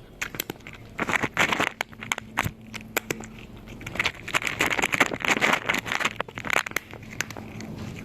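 A cat chewing a crunchy snack: runs of crisp crunches in bursts, with short pauses between bites.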